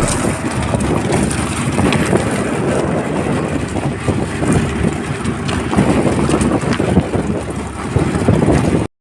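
Wind buffeting the microphone, a rough rumbling outdoor noise with no music or voices, cutting off abruptly near the end.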